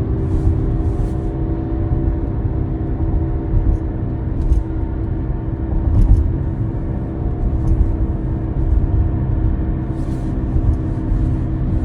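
2023 Tesla Model Y Dual Motor under way: low road rumble with a steady multi-tone whine over it. This is the scratching, bearing-like noise that grows louder under acceleration and that Tesla traced to a faulty front hub assembly.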